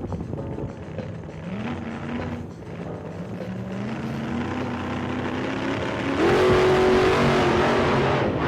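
Car engine accelerating through the gears, its pitch rising in steps and getting loudest about six seconds in.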